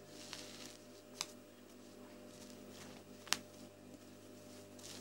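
Quilted jacket fabric being moved and rustled by hand at a stopped sewing machine, with a few sharp clicks, the loudest about three seconds in, over a low steady hum.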